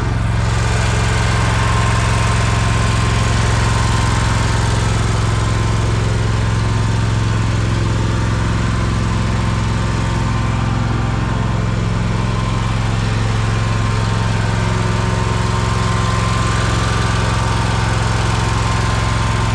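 Small gasoline engine running steadily at a constant speed.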